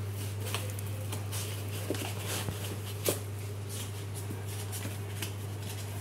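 Cardboard kettle carton and its paper inserts being handled, with scattered light rustles and taps over a steady low hum.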